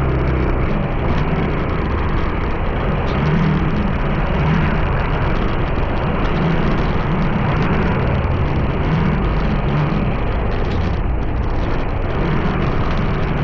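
Steady engine and road noise of a moving vehicle, a dense rushing noise over a low rumble that swells and eases slowly.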